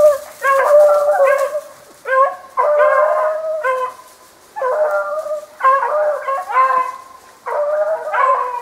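Beagles baying on the track of a snowshoe hare: drawn-out, ringing hound bays in repeated bursts, more than one dog giving voice at once, with brief gaps between volleys.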